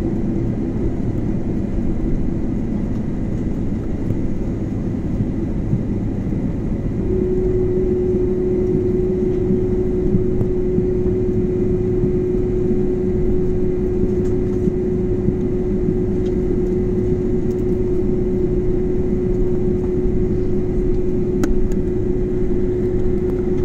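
Jet airliner engines running at taxi power, heard inside the passenger cabin as a steady rumble and hiss. A steady hum drops away for a few seconds and comes back stronger about seven seconds in, as the engine noise rises slightly.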